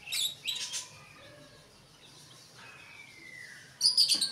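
Chicks peeping: a few short high chirps at the start, one falling peep a little before three seconds in, and a louder run of chirps near the end.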